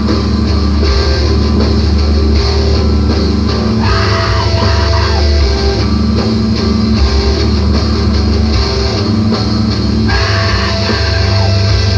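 Heavy screamo/emoviolence band recording: loud distorted electric guitars over a drum kit, playing continuously.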